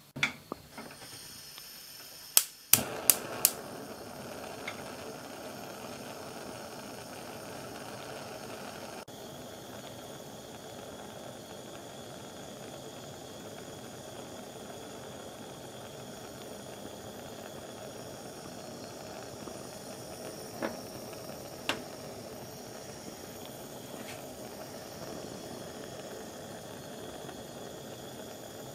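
Gas stove burner lit with a few sharp igniter clicks, then the steady hiss of the gas flame burning under a sheet of mixed metals. Two single sharp ticks sound near the end.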